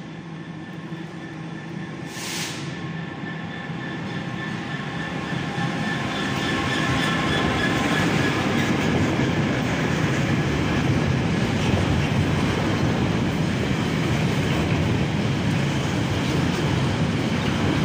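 A Class 66 diesel locomotive's two-stroke EMD engine approaches and grows steadily louder, passing close by about seven seconds in. Its loaded freight wagons follow with a steady rumble and the clatter of wheels on rail joints. A short hiss comes about two seconds in.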